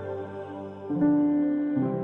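Soft, slow keyboard music of a TV channel ident: sustained chords that change about once a second, the loudest coming in about a second in.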